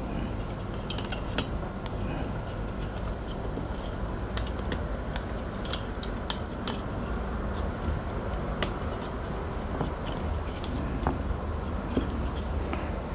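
Small, irregular plastic clicks and taps of computer mouse parts being handled and fitted together during reassembly, over a steady low hum.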